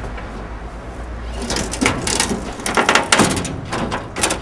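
Knocks and clatter in a pickup truck's bed as a man steps about on its floor and shifts the loaded gear, starting about a second and a half in and loudest near the end.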